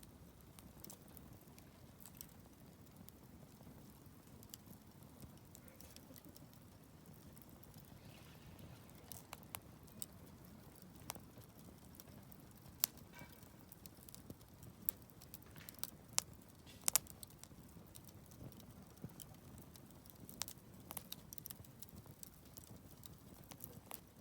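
Wood campfire burning: a soft low rumble of flames with irregular sharp crackles and pops from the burning wood, more frequent in the middle.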